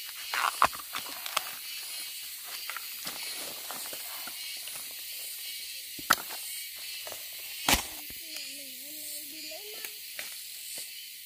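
Rustling and snapping in bamboo undergrowth with many small clicks and three loud sharp knocks, over a steady high insect hiss. A brief wavering tone comes in about eight seconds in and lasts under two seconds.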